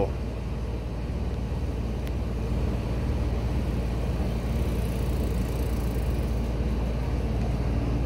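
Motor vehicle engine idling steadily, a low even hum with street traffic noise around it.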